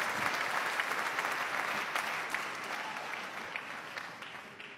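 A large audience in a hall applauding, the clapping slowly dying away.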